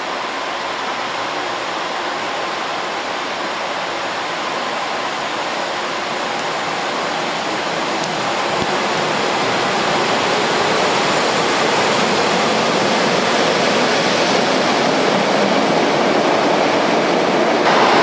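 Electric multiple-unit commuter train rolling along a station platform: a steady rushing noise of wheels on rails and running gear that grows gradually louder as the cars pass close by.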